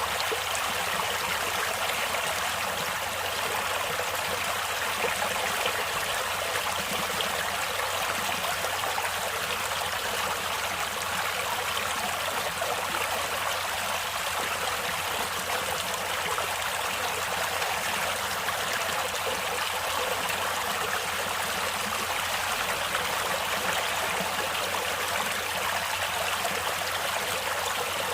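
Natural stream water flowing steadily, an even wash of sound with no breaks or changes.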